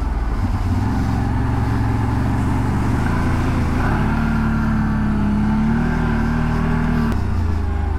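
CFMoto CForce 1000 ATV's V-twin engine running under way, the engine note climbing a little in the middle and dropping back near the end.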